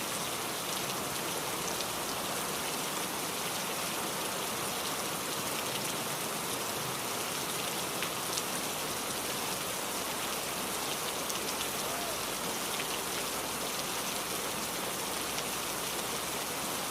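Heavy rain falling steadily: a dense, even hiss with scattered sharper drop taps.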